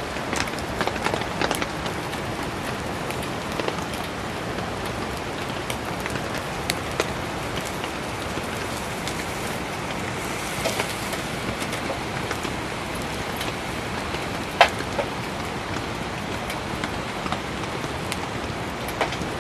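Steady heavy rain falling, with a wood campfire crackling now and then in sharp pops; one louder pop comes about three-quarters of the way through.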